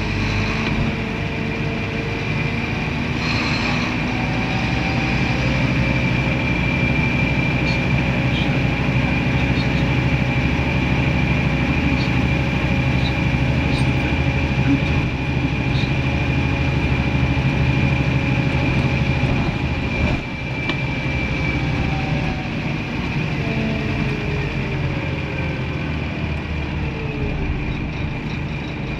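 Scania N230UD Omnidekka double-decker bus heard from inside while driving: its five-cylinder diesel engine running under way, with a steady high whine through most of the ride that fades after about twenty seconds.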